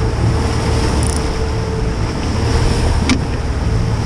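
Boat running through choppy sea: water rushing and splashing along the hull and wind buffeting the microphone over the steady drone of twin Honda 250 outboard motors. A single sharp click about three seconds in.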